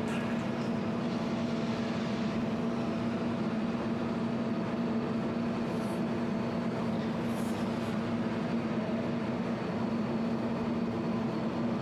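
200-watt jewelry laser welder running with a steady electrical hum, with two faint brief ticks about six and seven and a half seconds in.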